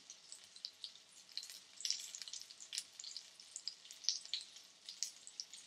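Flour-coated mince cutlets shallow-frying in hot oil in a pan: a faint steady sizzle with many short, irregular crackles and spits.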